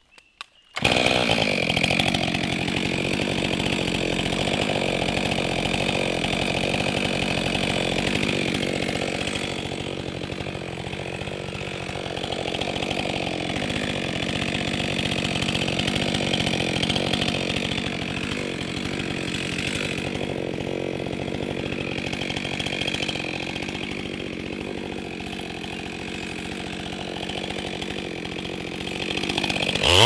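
Stihl MS 462 C-M two-stroke chainsaw running at steady high revs, cutting dead red gum. It starts abruptly about a second in and holds an even pitch, the level sagging and swelling slightly.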